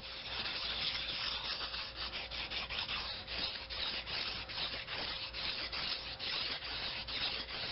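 A stainless steel knife blade being stroked back and forth across a wet Japanese water stone, a steady scraping that swells and fades with each stroke.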